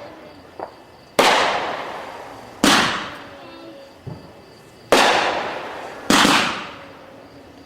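Consumer aerial fireworks going off: four loud bangs about one to two seconds apart, each dying away over a second or more, with a couple of small pops between them.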